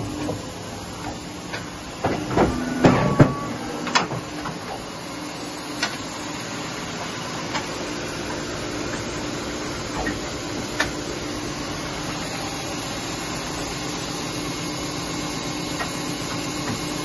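Polar 115 EMC-Monitor guillotine paper cutter switched on and running, a steady hum with hiss. A few clicks and knocks in the first few seconds, then single ticks now and then.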